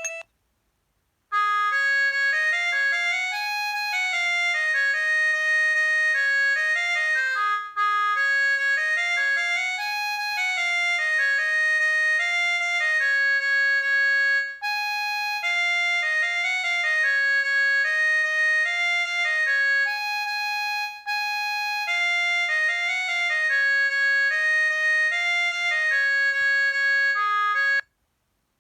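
Preloaded ringtone of a Huawei G7002 mobile phone: a synthesized melody of high notes with no bass, repeating in short phrases. It starts about a second in and stops just before the end.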